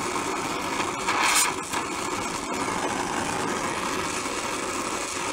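Oxygen-fuel gas torch flame hissing steadily while it heats a steel drum key for silver soldering, with a brief louder rush about a second in.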